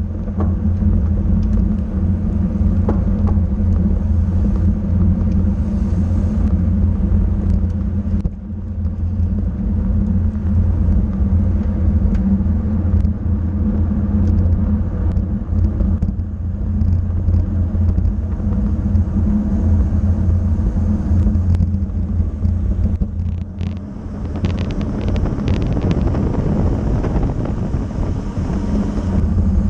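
Steady loud rumble of wind and road noise on a racing bicycle's on-board camera at race speed, easing briefly about 8 seconds in and again about 23 seconds in.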